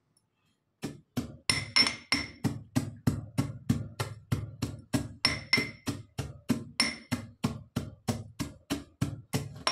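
Steel pestle pounding in a stainless-steel mortar, about three strokes a second from about a second in, coarsely crushing roasted coriander seed, fennel and cumin. Some strikes ring with a bright metallic clang.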